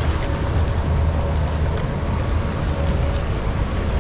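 Steady rushing roar of the Rhine Falls waterfall, with a heavy low rumble beneath it and a faint steady hum.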